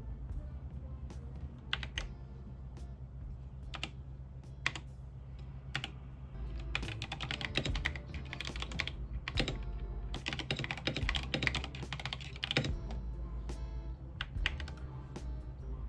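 Typing on an Epomaker TH80 mechanical keyboard with Flamingo linear switches, over background music. There are scattered single keystrokes, then two fast runs of typing in the middle.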